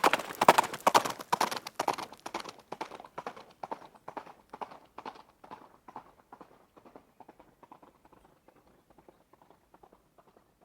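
Horse running: a rapid, even train of hoofbeats, loudest in the first couple of seconds and fading steadily until faint near the end.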